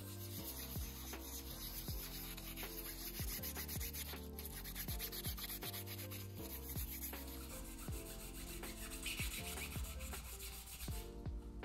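Fine-grit wet sandpaper rubbing back and forth on a cured resin 3D-printed part, a steady rasping that stops shortly before the end. Background music plays underneath.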